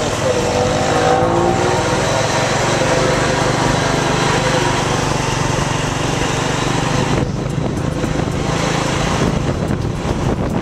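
Motor scooter engine running under way, with wind rushing over the microphone. The engine note rises in pitch between about one and three seconds in as it picks up speed.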